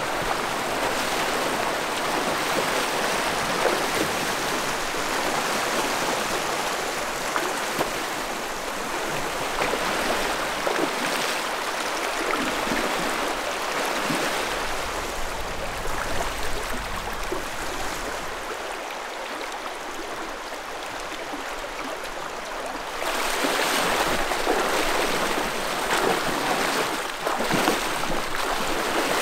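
Shallow river rapids rushing over rocks in a steady wash of water, with splashing from legs wading through the current while a canoe is hauled upstream. The rush grows louder about three-quarters of the way in.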